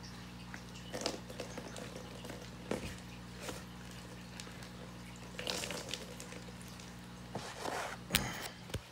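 Irregular rustles, clicks and splashes from a clear plastic shipping bag of water being handled, over a steady low hum.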